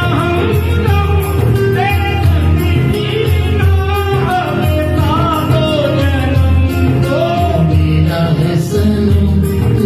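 A man singing a slow, melodic song into a microphone over backing music with a steady bass line.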